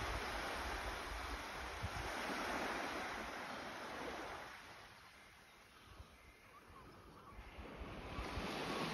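Small waves breaking and washing up a sandy beach, with wind gusting on the microphone. The surf fades to a lull about halfway through and swells again near the end.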